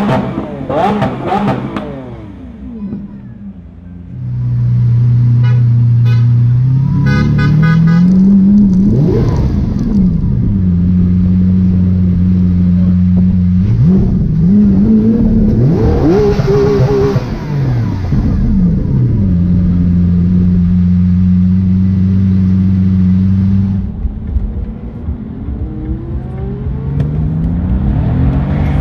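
Supercar engine running loud at held revs. Its pitch steps up and down several times, with quick rises and falls between steady stretches, then eases off near the end.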